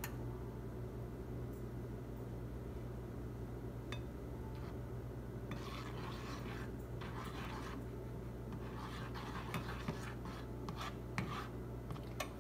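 A spatula stirs and scrapes cereal around a frying pan in uneven bursts, with a few sharp clicks against the pan. A steady low hum runs underneath.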